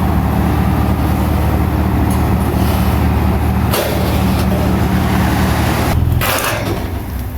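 Heavy diesel engine running steadily under load, with a short hiss midway. About six seconds in there is a louder hiss and the engine note drops away.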